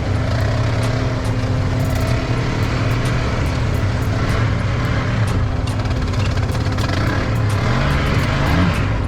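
ATV engine running steadily during a ride, with a short rise in engine pitch about eight seconds in and many short knocks and rattles.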